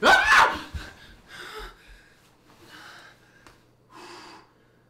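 A man gasps sharply and loudly in shock, then breathes in three shorter, breathy gasps a little over a second apart.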